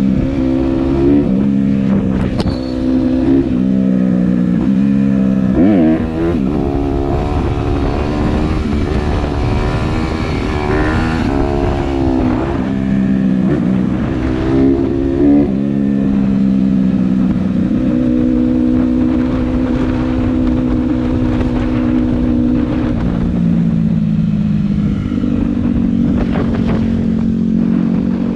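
Honda CRF150R dirt bike's single-cylinder four-stroke engine running under way, its pitch rising and falling with the throttle through the first half. It then holds steady for several seconds, dips, and picks up again near the end.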